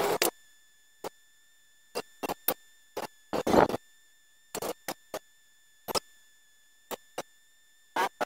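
Irregular sharp metal clanks and clicks of a wrench working the headset on a mountain-bike fork's steerer tube, about a dozen short knocks with near silence between, the loudest about three and a half seconds in.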